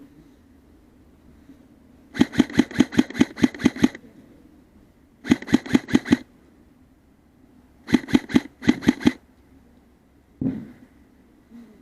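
Airsoft gun firing three strings of rapid shots, about six a second, with short pauses between them. A single dull thump follows near the end.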